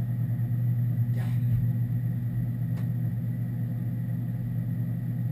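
A steady low machine hum, with a faint click about three seconds in.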